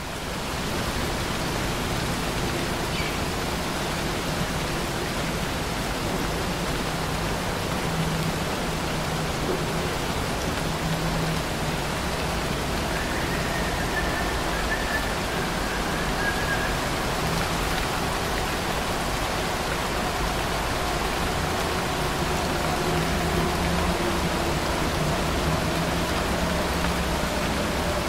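Steady rain falling, an even unbroken hiss that fades in at the start and then holds constant.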